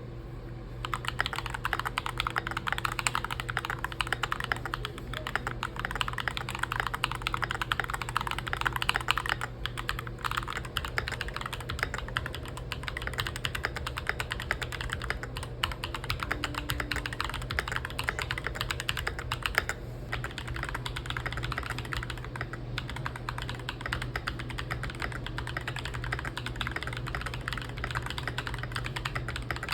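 Continuous fast typing on a mechanical keyboard fitted with Newmen PBT dye-sub Cherry-profile keycaps: a dense stream of key clacks, with a steady low hum underneath.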